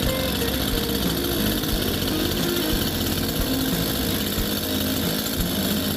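Two-stroke engine of a TOTAL TG945185 gasoline chainsaw running steadily at idle, freshly started.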